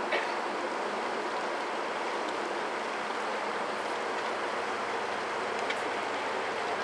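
Steady rushing of river water, an even hiss with no rise or fall. A faint click sounds just after the start.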